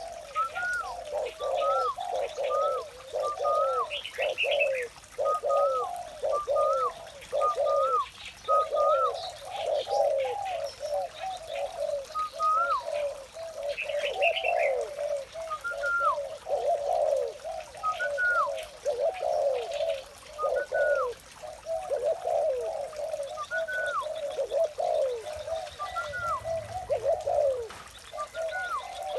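Spotted doves cooing continuously, several birds' coos overlapping. Short higher hooked notes repeat every second or two above them, with a few faint chirps.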